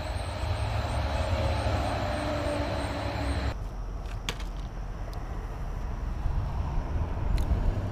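Steady rumble and hiss of traffic passing over a concrete road bridge, with a high steady whine and a faint tone falling slowly in pitch. It cuts off suddenly about three and a half seconds in, leaving a low wind rumble on the microphone and a few light clicks.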